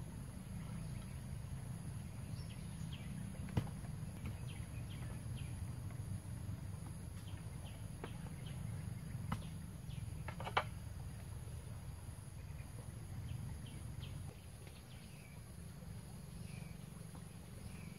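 Steady low rush of a fast-flowing flooded river, with a few sharp knocks of split-bamboo roof slats being set in place, the loudest about three and a half and ten and a half seconds in. Faint bird chirps run through it.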